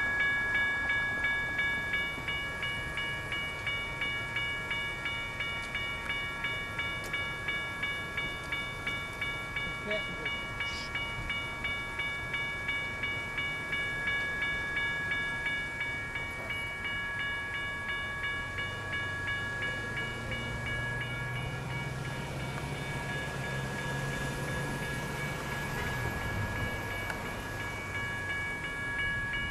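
Railroad crossing warning bell ringing in a fast, even rhythm of about two or three strokes a second as the crossing signals flash. About two-thirds of the way through, a low engine hum joins it for several seconds.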